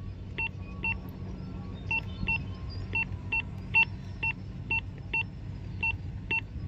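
Two-way radio keypad beeping as the channel is being changed: a string of short two-tone beeps, about two a second at uneven spacing, over a steady low hum.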